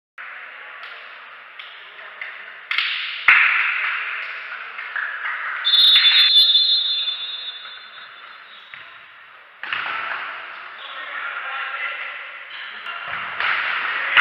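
Match sounds of an indoor ball game echoing in a large sports hall: the ball bouncing and knocking, players calling out, and a short whistle blast about six seconds in.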